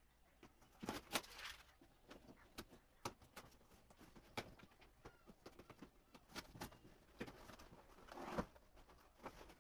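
Cardboard shipping box being opened by hand: irregular scrapes, taps and rustles of cardboard and tape, with louder bursts of handling about a second in and again near the end.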